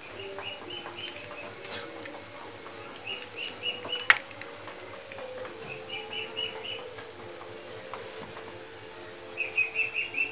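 A small bird chirping in short runs of quick, high notes, four runs in all. About four seconds in comes a single sharp click, the loudest sound, likely the metal spatula striking the wok, over a steady low hum.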